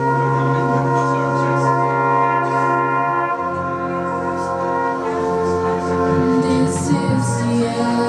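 A fanfare band's brass section playing slow, sustained chords with no voice. The chord changes about three seconds in and again near the end.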